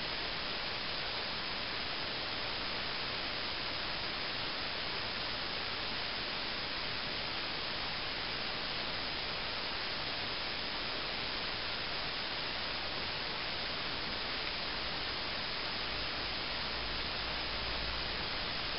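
Steady, even hiss of background noise, like static, with no other distinct sound.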